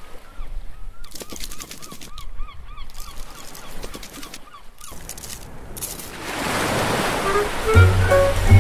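Animated logo intro soundtrack: a run of short, squeaky cartoon chirps with light clicks, then a rushing wave splash about six seconds in, and music with a deep bass line coming in near the end.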